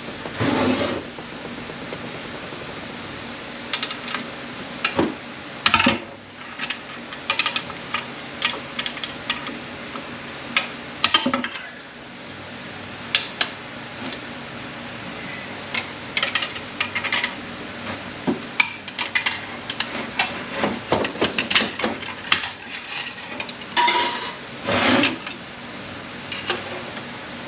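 Steel clutch plates and friction discs from an A650E automatic transmission's clutch pack clinking and clattering as they are pulled out and handled, in irregular clanks of metal on metal.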